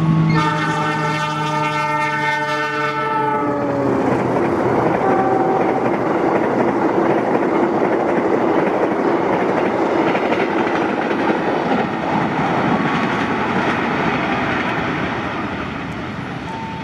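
Express train passing through at speed: the locomotive's horn sounds for about three seconds and drops in pitch as it goes by, followed by a loud rush of wheels on rail with rapid clickety-clack that eases off near the end.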